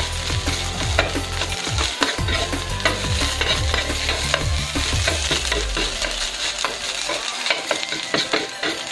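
Metal spatula scraping and clinking against a wok in quick, irregular strokes as sardine sisig is stir-fried, over a steady sizzle of frying oil.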